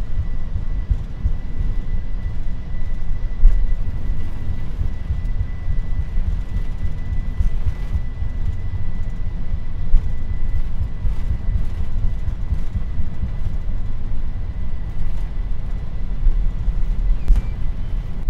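Boeing 747-400 freighter's takeoff roll heard from the cockpit, with the engines at takeoff thrust: a dense, steady low rumble, jolting unevenly with the roll along the runway. Two sharper thumps come about three and a half and ten seconds in, and a faint steady high tone sounds over the first half.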